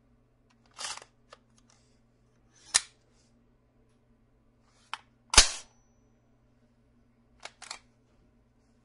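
Sounds of an AR-15 type rifle: a series of sharp mechanical clicks and clacks, with two louder cracks about three and five and a half seconds in, the second the loudest.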